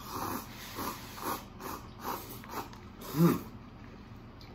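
People slurping and chewing instant cup ramen noodles from chopsticks, in short breathy bursts about every half second. About three seconds in, a louder short voiced 'mm' sound rises and falls.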